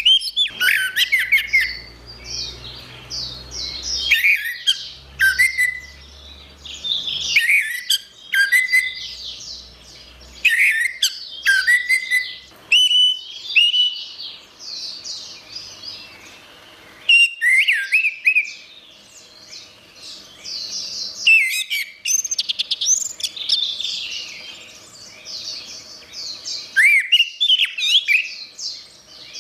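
Orange-headed thrush singing a varied song: phrases of quick rising and falling whistles and chattery notes, delivered in bursts of a second or two with short pauses between them.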